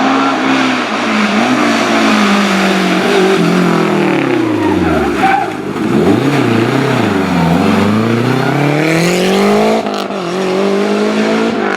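A historic rally car's engine at race pace: the revs fall steeply as it brakes, bottoming out about five seconds in, then climb again through the gears as it accelerates away, with a brief dip at a gear change near the end.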